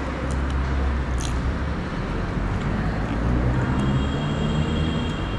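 Low, steady rumble of a vehicle engine, with faint pitched humming in its second half and a few faint clicks.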